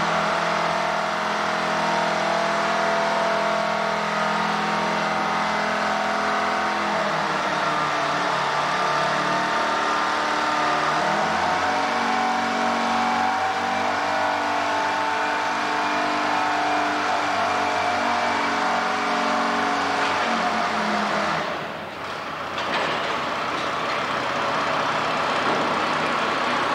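Diesel engine running steadily, its pitch shifting down and up in steps a few times, with a brief drop in level a little over twenty seconds in.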